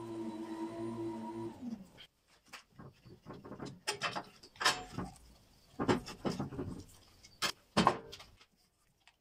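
A held musical drone ends with a brief falling glide about two seconds in. Then come scattered clicks, creaks and knocks as steel bar clamps are slid and screwed tight against a stack of wooden planks, with a few sharper knocks near the end.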